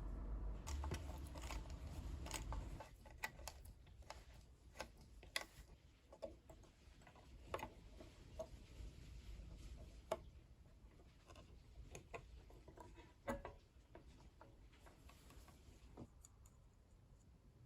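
Irregular light clicks and taps, a dozen or more, spread unevenly, with a low rumble during the first three seconds.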